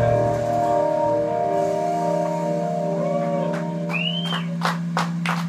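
Live band's closing chord ringing out, guitar and keyboard holding a sustained chord that slowly fades, with a whistle from the audience about four seconds in. Applause starts up near the end.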